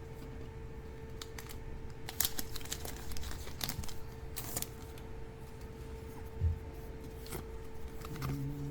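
Trading-card pack opening and card handling: scattered crinkles, rustles and snaps of foil booster wrappers and cards, with a soft thud a little past the middle. A faint steady hum runs underneath.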